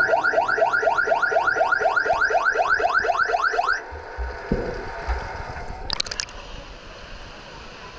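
Underwater hockey referee's underwater siren, heard through the water: a rapid series of rising chirps, about five a second, that stops after nearly four seconds. A dull thump follows, then a short splash about six seconds in.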